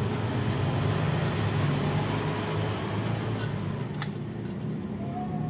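A motor vehicle's engine running steadily with a low hum, and a single sharp click about four seconds in.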